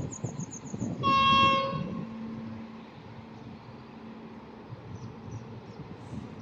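Horn of a 060-EA (LE 5100 kW) electric locomotive giving one blast of about a second, a little way in, over the rumble of the train, which then fades to a low steady hum.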